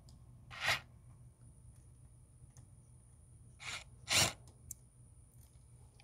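Three short scraping rustles, one about a second in and two close together around four seconds in, from hands and tools working the wiring at an air-conditioner condenser's capacitor. A faint steady low hum sits underneath.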